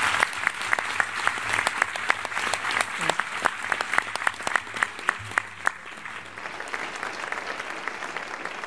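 Audience of delegates applauding in a large hall, with individual sharp claps standing out among the many, the clapping thinning a little toward the end.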